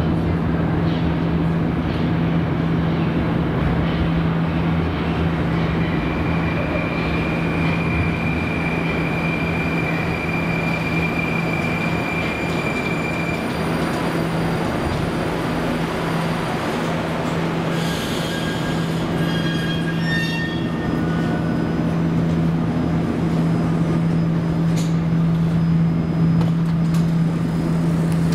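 Moscow Metro 81-765 "Moskva" train arriving and standing at the platform, with a steady low hum and running noise; a long high squeal sounds for about seven seconds as it slows. About two-thirds of the way through comes a quick run of short electronic beeps, the train's door signal.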